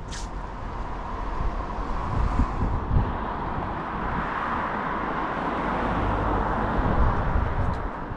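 A vehicle passing along a street: its road noise swells over several seconds and eases off near the end.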